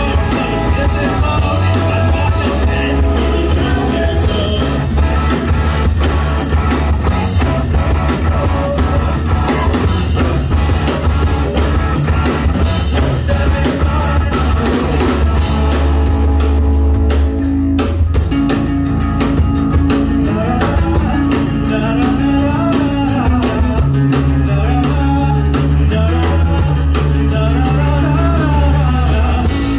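Rock band playing live and loud, with guitar and drum kit; the drums and bass drop out briefly about seventeen seconds in, then the band comes back in.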